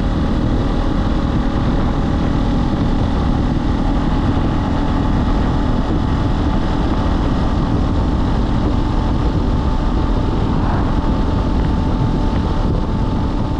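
Hawk X 250 dual-sport motorcycle being ridden at a steady speed: engine drone under heavy wind rush on the microphone.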